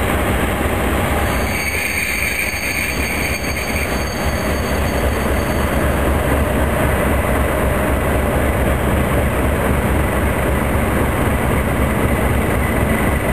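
Class 37 diesel locomotive's English Electric V12 engine running with a steady heavy rumble as it approaches slowly, with a brief high-pitched squeal from the train a couple of seconds in.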